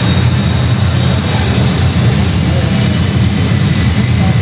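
Jet airliner engine sound played through the model airport's loudspeakers: a steady, loud rumble with a faint high whine over it.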